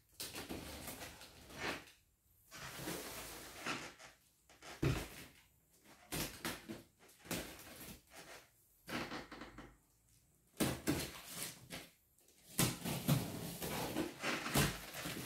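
Shipped cardboard box being unwrapped by hand: irregular bursts of tearing and rustling as its plastic wrapping and packing tape are pulled off, with a few sharp knocks against the box.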